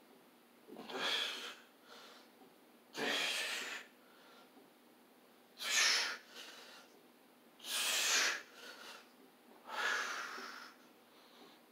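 A man breathing out hard with the effort of each repetition of a neck exercise: five forceful breaths about two seconds apart.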